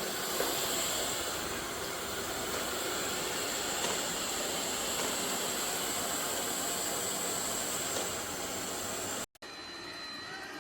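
eufy X10 Pro Omni robot vacuum running: a steady airy hiss with a high whine. About nine seconds in it cuts off abruptly, and a quieter, different steady sound follows.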